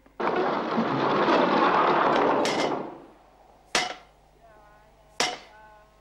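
A loud rushing noise that fades away about three seconds in, then sharp knocks with a short ringing tail, three of them about a second and a half apart, over a faint wavering tone.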